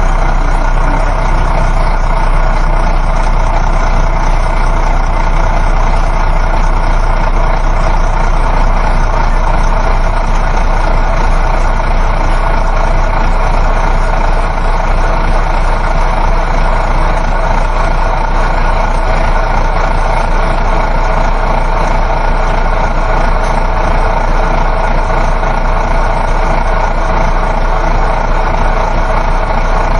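Inside a coach bus on the move: a steady, unbroken engine drone mixed with road and tyre rumble.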